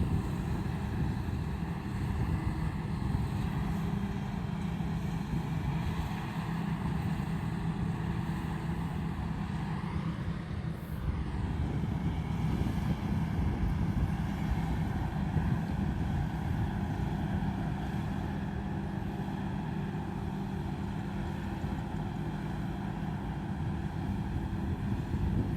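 Combine harvester engine running steadily, a continuous low mechanical drone.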